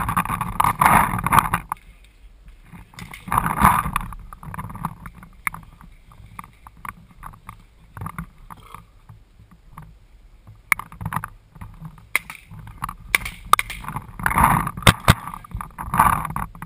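Handling noise from a camera mounted on a paintball marker carried by a walking player: irregular knocks, clicks and rattles of the gun and gear. A few louder muffled bursts come near the start, about three seconds in and near the end.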